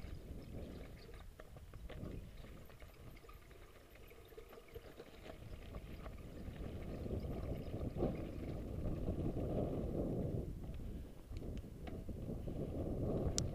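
A mountain bike rolling over a rocky dirt trail, its tyres rumbling and crunching, with wind buffeting the action camera's microphone; the noise swells and fades, and a few sharp clicks and rattles come near the end.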